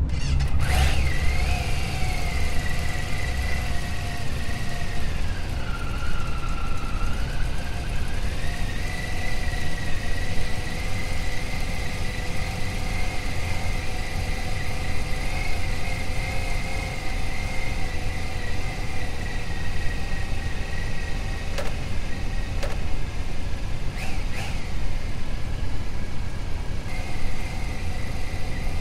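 Motorcycle engine running steadily at cruising speed, its pitch easing down briefly around six seconds in and rising back.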